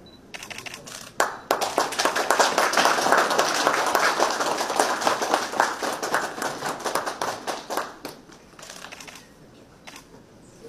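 Applause from a small group of people, starting sharply about a second in and dying away after about eight seconds.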